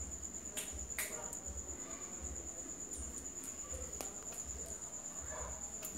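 A steady, high-pitched, finely pulsing insect trill, with a few sharp clicks scattered through it, such as claws on a tile floor.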